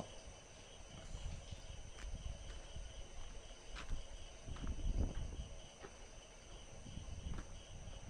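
Footsteps on a rubble-strewn construction site: a few scattered scuffs and crunches over a low rumble and a faint steady high hiss.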